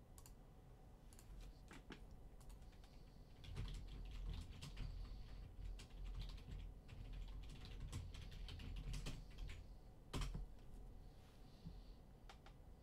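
Faint typing on a computer keyboard: irregular key clicks, with one sharper click about ten seconds in.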